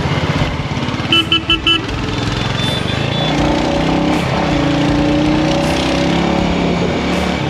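Bajaj Pulsar motorcycle with an aftermarket exhaust running at riding speed in traffic, heard from the saddle. About a second in, a horn gives four quick beeps; after that the engine settles into a steady, even note.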